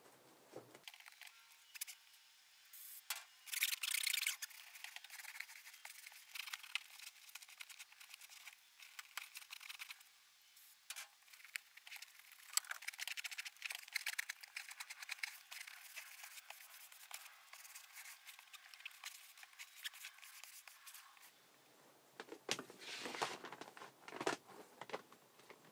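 Gloved hands rubbing and pressing a rubber floor mat against the cab floor, giving faint, intermittent scratchy scraping and rustling. A loose rubber floor mat is slid and laid into place near the end.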